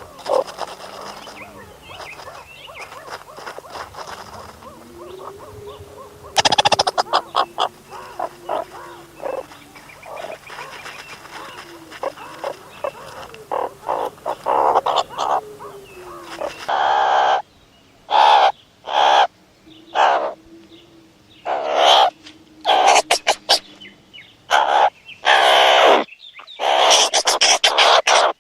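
Meerkats calling: a busy run of chirps and peeps, then, after an abrupt change about two-thirds of the way in, a series of about a dozen short, loud, harsh calls with quiet gaps between them.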